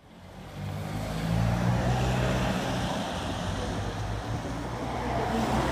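Street traffic noise with a motor vehicle's engine running nearby, a steady low hum under a wash of road noise.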